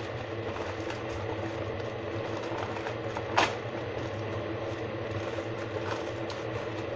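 Steady low mechanical hum with a single sharp click about three and a half seconds in.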